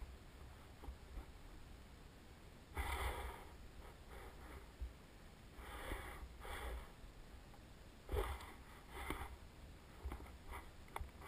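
Wind on the camera's microphone: a faint, steady low rumble broken by short gusts of hiss every couple of seconds.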